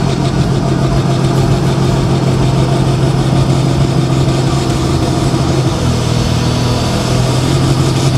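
Deutz pulling tractor's diesel engine running steadily while standing at the start line, held in place to build boost pressure before the pull.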